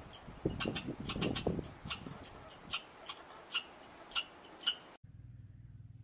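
Red squirrel calling with a rapid series of sharp, high-pitched chirps, about three or four a second, that stop suddenly about five seconds in; a faint low hum follows.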